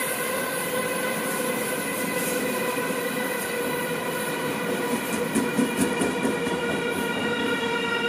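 Electric commuter train passing over a level crossing, its wheels clattering over the rail joints, loudest about five to seven seconds in. A steady pitched tone sounds through it all.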